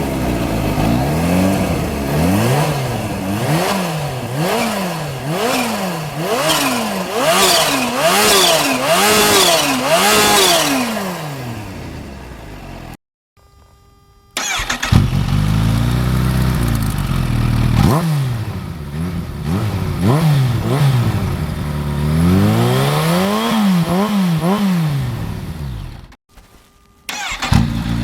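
Kawasaki Ninja H2 SX SE's supercharged inline-four running through a Vandemon slip-on silencer, revved again and again in quick blips that rise and fall in pitch, settling back between them. A fast run of blips comes near the end. The sound cuts out briefly twice.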